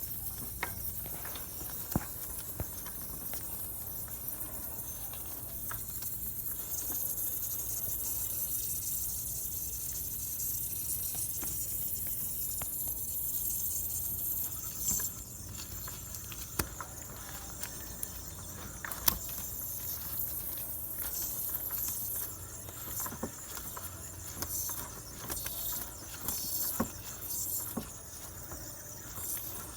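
The AC compressor of a 2012–2015 Honda Civic 1.8L running under the hood while failing: a steady hiss over a low hum, with irregular sharp clicks and ticks that grow more uneven near the end.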